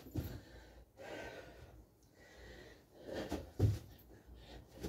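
Heavy breathing and gasping from a man mid-way through a burpee workout, with thuds of his feet and body on a carpeted floor. The loudest is a heavy thump about three and a half seconds in as he drops down to the floor.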